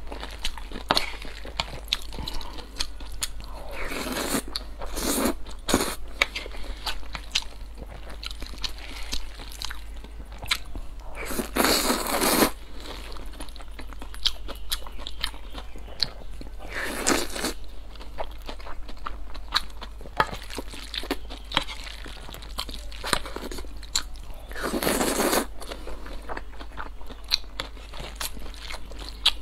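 Close-miked eating of stir-fried glass noodles: steady chewing and mouth clicks, with four longer slurps spread through, the loudest about twelve seconds in.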